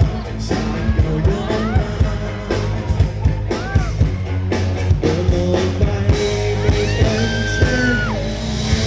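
Live rock band playing: a steady drum-kit beat with electric guitars and bass, and a man singing lead through the PA.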